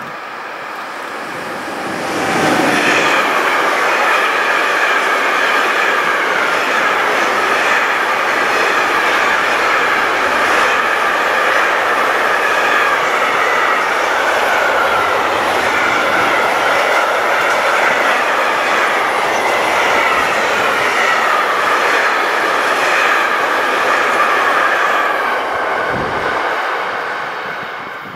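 Container freight train hauled by an ÖBB Taurus electric locomotive passing close by: a steady rumble of wagons with a high, wavering squeal from the wheels. It gets loud about two seconds in and fades away near the end.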